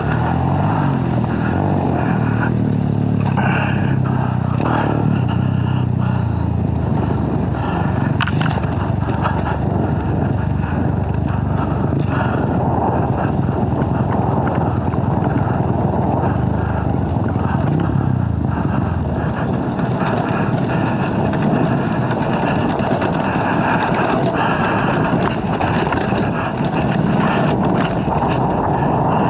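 Dirt bike engine running under way on a trail, its note shifting up and down during the first several seconds, then buried in a steady rush of noise.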